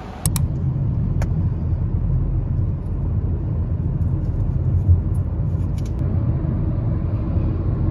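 Road and engine noise inside a moving car's cabin: a steady low rumble, with a couple of sharp clicks within the first second.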